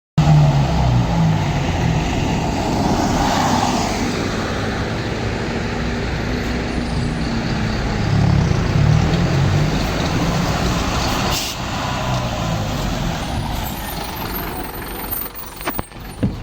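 Mercedes-Benz LO 916 bus's OM924LA four-cylinder turbodiesel engine running, its exhaust note rising and falling several times. A short air hiss comes about three and a half seconds in, and a few sharp clicks come near the end.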